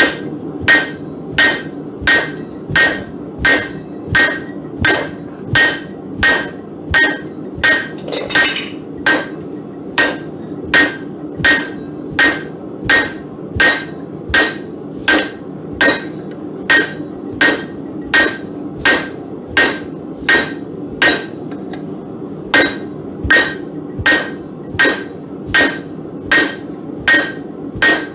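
Hand hammer striking hot mild steel on an anvil while forging a hardy tool, an even rhythm of about three blows every two seconds. Each blow has a short metallic ring, and a steady low hum runs underneath.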